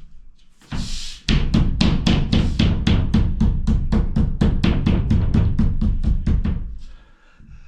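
A plasterboard sheet being struck over and over against the socket boxes behind it: rapid thumps, about five a second, which stop near the end. The knocking presses the board onto the chalked edges of the boxes so they leave their outlines on the back of the board.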